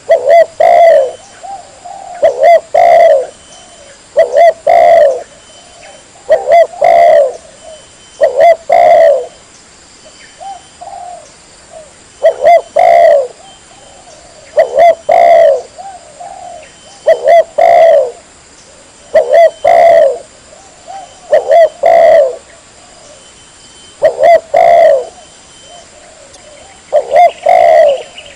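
Spotted dove (tekukur) cooing over and over, loud phrases of low coos coming about every two seconds, with a brief lull about ten seconds in.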